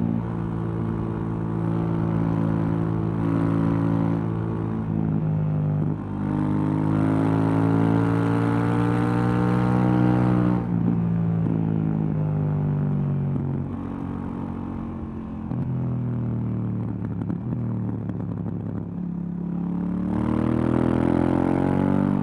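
KTM 790 Duke's parallel-twin engine through its stock exhaust, ridden on the road. It runs fairly steadily at first, then pulls hard with the revs climbing for about four seconds. The throttle shuts abruptly and the revs fall away, and the engine revs up again in a second pull near the end.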